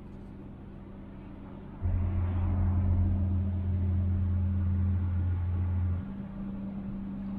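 A large ship's horn sounds one long, deep, steady blast of about four seconds, starting and stopping sharply, over a steady low hum.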